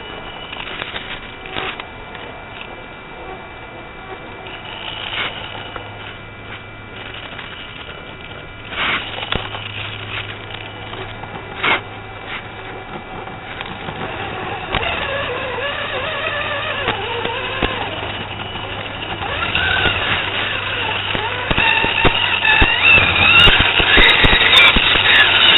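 Electric motor and drivetrain of a scale RC crawler truck, heard through its onboard microphone. The whine wavers up and down in pitch with the throttle and grows louder in the second half, with a few sharp knocks from the chassis in the first half.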